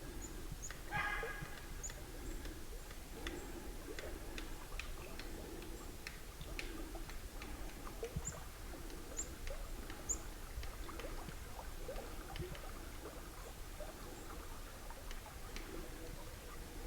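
Quiet woods picked up through a parabolic microphone: a faint steady rush of river rapids, scattered small clicks and ticks, and a few very short high chirps. A brief call with several tones sounds about a second in.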